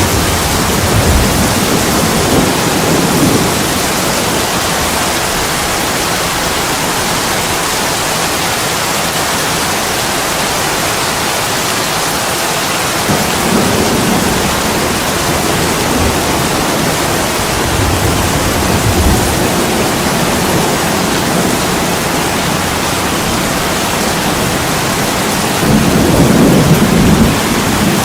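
Heavy rain pouring steadily on an attic window, with low thunder rumbles swelling up several times, the loudest near the end.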